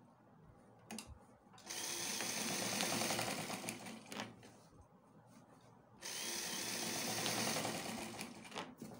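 Electric sewing machine running in two bursts of stitching, each about two and a half seconds long, as a pocket seam on trouser fabric is top-stitched. Quieter fabric handling can be heard before and between the runs.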